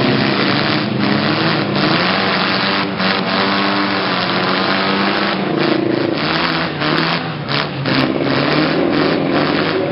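Several demolition derby cars' engines running and revving together, a loud, dense din whose pitches rise and fall.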